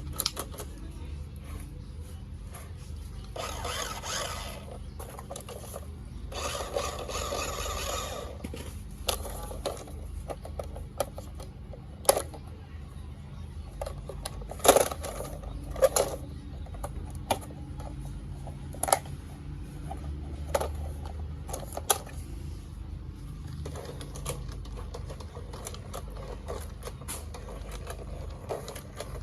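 Toy remote-control car running on AA cells: its small electric drive motor and plastic gears whir in two short spells, followed by many sharp plastic clicks and knocks.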